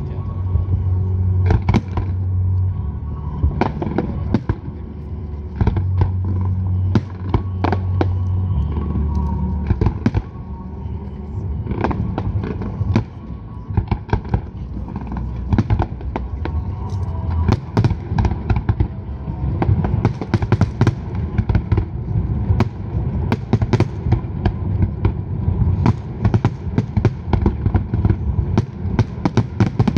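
Large fireworks display: aerial shells bursting in a steady run of bangs over a deep rumble. The bangs grow into dense, rapid crackling salvos in the second half.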